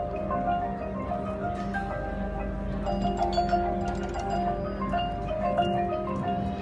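Front-ensemble keyboard percussion, marimbas and other mallet instruments, playing slow, ringing held notes and chords over a steady low drone.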